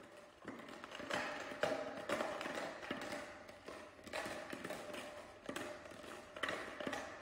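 A baby handling an empty plastic bottle: irregular crinkling with scattered taps and knocks as the bottle is grabbed and banged about on a foam play mat.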